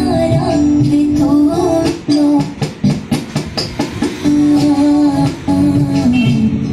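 Music: a song with singing and plucked strings. About two seconds in, the held melody gives way to a couple of seconds of short, choppy notes before it returns.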